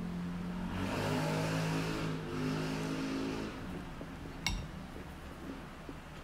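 A motor vehicle's engine drone swells for a few seconds and then fades, followed by a single sharp click about four and a half seconds in.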